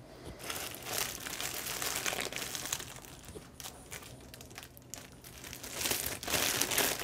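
Crinkling and rustling of the wrapping on a packet of mint as it is handled and tugged at, in uneven bursts, loudest about a second in and again near the end.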